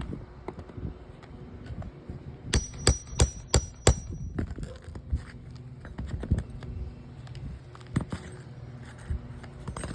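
Hand tools working a roof shingle loose: a quick run of about five sharp metal strikes with a brief ringing, as from a hammer and crowbar, followed by scattered softer knocks and scraping.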